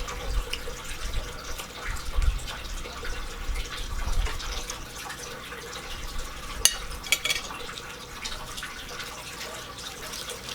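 Close-up eating sounds from a person eating a fried chimichanga: wet chewing and mouth noises, with a few crisp crunches or clicks about two thirds of the way through.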